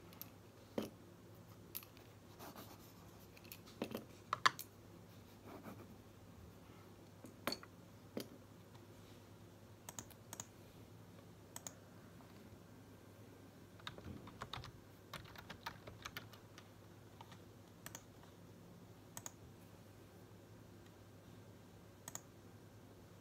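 Sparse light clicks and taps of a computer mouse being clicked and handled at a desk, over a faint steady low hum.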